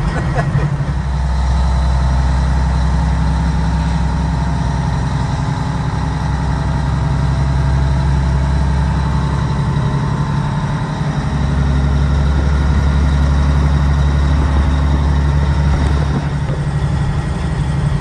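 Caterpillar diesel engine of a 1986 Ford LTL 9000 truck pulling on the road, heard from inside the cab as a steady low drone. The drone drops away briefly about ten seconds in at a gear change, then comes back and eases off near the end.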